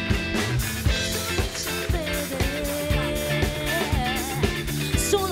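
Live rock band playing an upbeat number: electric guitars, bass and drums with a steady beat.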